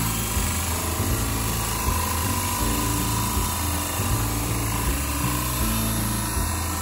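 Corded drill running a hole saw that is cutting through the bus's side wall, a steady grinding whir with no break.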